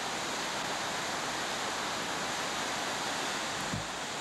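Mill Creek in full flood, carrying about 3,500 cubic feet per second, rushing past as a steady broad noise of turbulent water. A brief low bump sounds about three-quarters of the way in.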